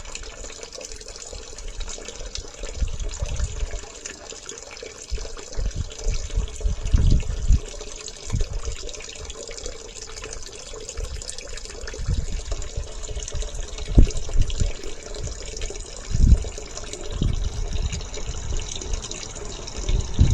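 Toilet-flush water running steadily from the inlet pipe into a sewage wet well. Irregular low gusts of wind buffet the microphone, the strongest about a third and two-thirds of the way through.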